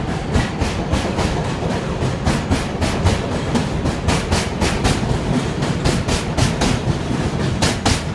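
New York City Subway R188 cars departing, wheels clacking over the rail joints in a quick rhythm over a steady rumble as the cars pass close by.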